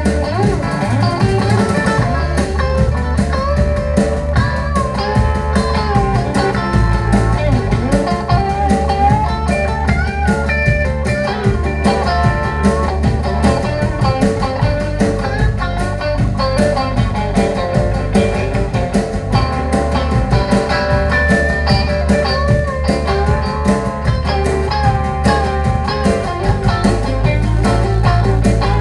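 Live blues-rock trio playing: electric guitar lead with bent notes over electric bass and a drum kit keeping a steady beat.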